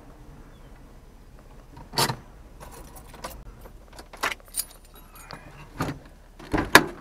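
Light metallic jingles and clicks, about nine at uneven intervals, rattling inside a small 4x4's cabin as it creeps over a gravel campsite, over a faint low rumble.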